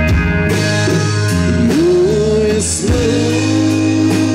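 Live bar band playing a slow country ballad on electric guitar, bass, drums and keyboard, with a melodic line that bends up and down in pitch between sung lines.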